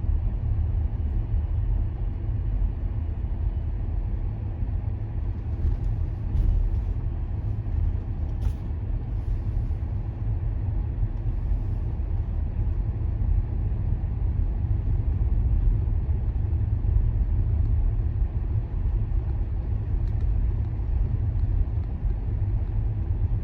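Steady low rumble of a car driving, heard from inside the cabin: road and tyre noise.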